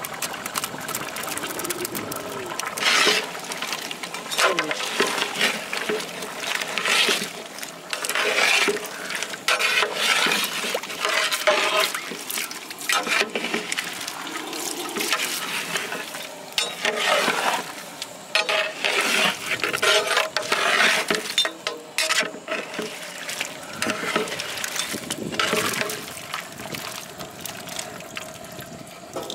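Liquid splashing and sloshing in a large pot of goat head curry as coconut is added and stirred in with a metal ladle, with occasional clicks of the ladle against the pot.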